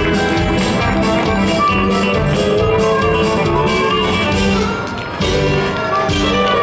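Music playing with held notes over a steady beat, dipping briefly in loudness about five seconds in.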